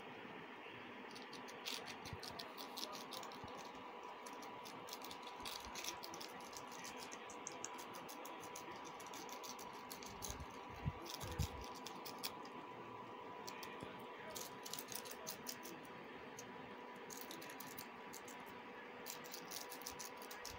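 Two guinea pigs chewing lettuce: runs of rapid, crisp crunching clicks over a steady hum. Two low thumps about halfway through are the loudest sounds.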